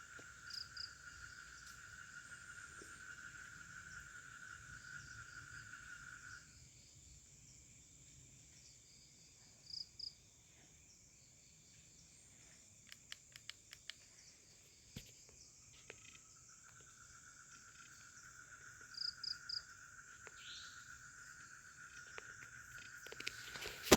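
Night-time forest insects: a steady high-pitched buzz throughout, and a lower continuous insect trill that stops about six seconds in and starts again around sixteen seconds. Short high chirps come a few times, and a run of faint clicks falls in the middle.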